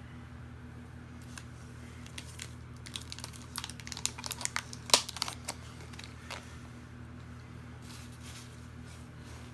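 Plastic packaging and containers being handled: a run of crinkles and sharp clicks starting about a second and a half in, thickest in the middle with one loud click near five seconds, and dying away after about six seconds. A steady low hum runs underneath.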